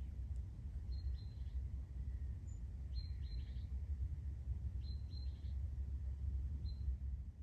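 A bird repeating short, high chirps, mostly in quick pairs, about every two seconds, over a steady low rumble.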